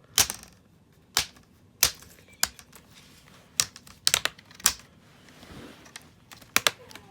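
Plastic clips of a Dell G7 7588 laptop's display bezel snapping loose as the bezel is pried off, a string of sharp, irregular clicks, some in quick clusters.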